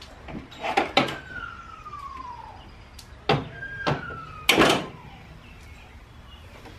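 Sharp metallic knocks and clanks of hands and tools working on the engine's belt and pulleys, five or so, the loudest about four and a half seconds in, with a few high squeaky tones sliding down in pitch between them.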